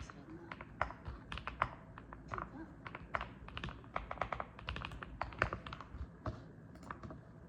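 Typing on a mechanical keyboard: an irregular run of keystrokes, each a short pop, thinning out near the end.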